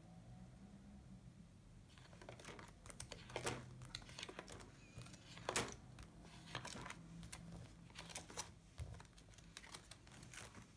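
Faint rustling and scattered clicks of plastic sheet protectors and pages being flipped in a ring-binder budget planner, starting about two seconds in.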